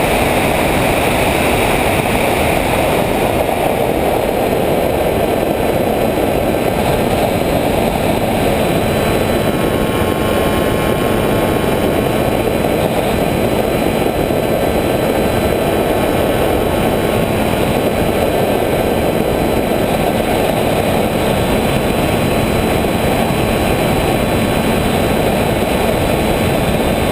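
Electric motors and propellers of an FPV remote-controlled aircraft, recorded through its onboard GoPro as a loud, steady rush with faint high whining tones above it.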